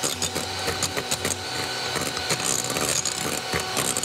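Electric hand mixer running steadily, its beaters whipping egg whites and sugar in a glass bowl into a firm meringue, with many rapid clicks throughout.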